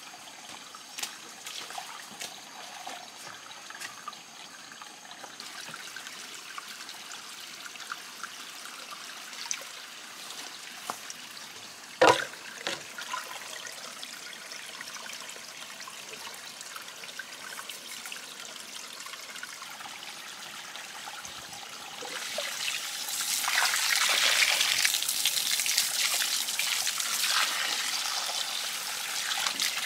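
Water trickling, with scattered small clicks and one sharp knock about twelve seconds in; the water sound grows louder from about twenty-two seconds.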